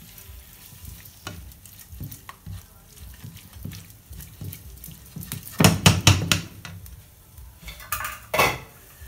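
Chopped chicken liver sizzling faintly in a hot dry frying pan while a spatula stirs and scrapes it, with a few louder knocks against the pan about halfway through and again near the end.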